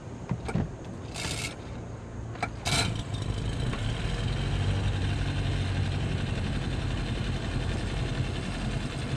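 Honda 9.9 four-stroke outboard motor being pull-started: two short rasps of the starter cord, the engine catching on the second pull about three seconds in, then idling steadily.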